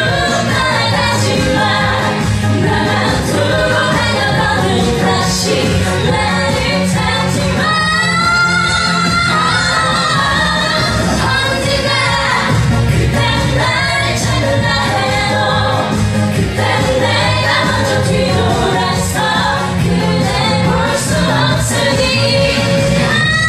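A singer performing a Korean trot song over a backing track, with wavering vibrato on the held notes.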